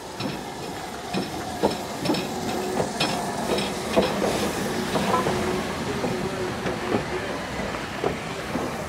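A train rolling along the track, its wheels clicking and knocking over rail joints at an uneven pace, with a faint steady tone under it.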